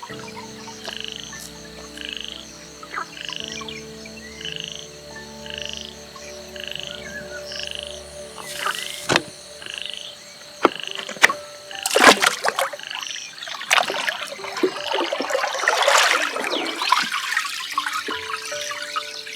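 Frogs croaking in a steady rhythm, about two calls a second. A few sharp knocks come around the middle, and then water splashing and pouring takes over, growing louder toward the end.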